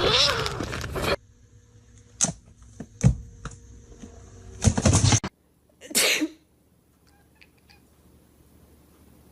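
A cat meowing, with a few sharp knocks and a short burst of noise between abrupt cuts.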